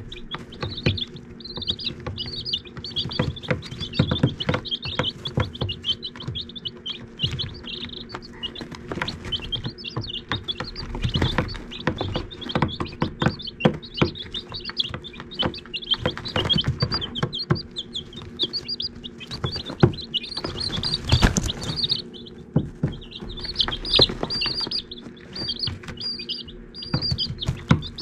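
Baby chicks peeping constantly, short high cheeps repeated throughout, with frequent sharp taps and rustles as they peck and move about in pine shavings; one tap about three-quarters through is the loudest.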